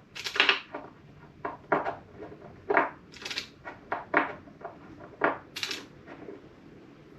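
A string of irregular knocks, clatters and short scrapes from handling motorcycle fork parts and tools, about a dozen in quick succession, with three longer hissy scrapes among them.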